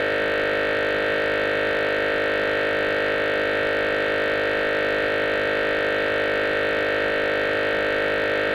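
Emergency Alert System attention signal: a loud, steady two-tone alert tone held without a break.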